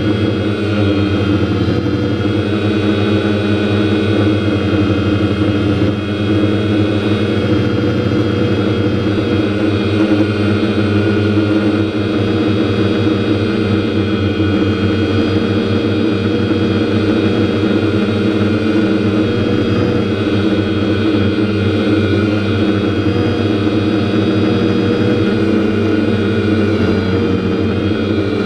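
DJI F550 hexacopter's six electric motors and propellers running steadily in low flight, picked up by a camera mounted on the airframe: a loud, unbroken drone of several steady tones layered together.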